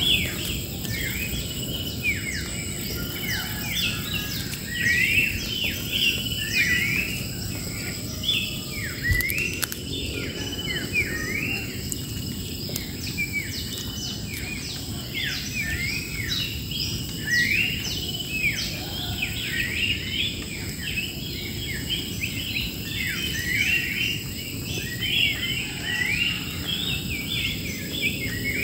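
A flock of wild birds chirping, many short quick notes overlapping without a break, over a steady high insect drone.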